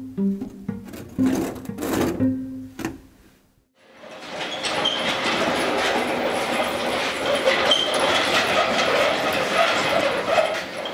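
Plucked guitar music that stops about three seconds in. After a short gap comes a steady rattling noise, a wheeled machine cart being rolled across the shop floor, with a couple of brief high squeaks.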